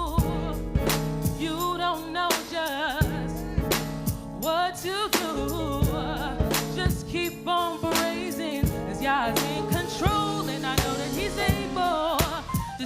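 Live gospel song: wordless singing and vocal runs over a band, with held chords and regular drum hits.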